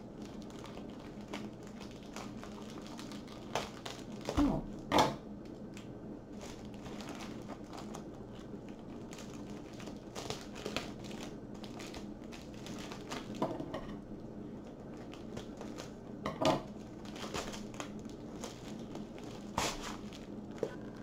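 Plastic mailer package crinkling and rustling as it is handled and opened, in scattered bursts, loudest about four to five seconds in and again near sixteen seconds.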